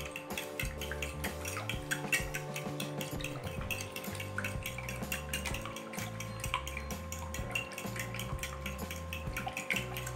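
Metal spoon beating eggs and milk in a glass bowl, clinking against the glass in a fast, continuous run of clicks.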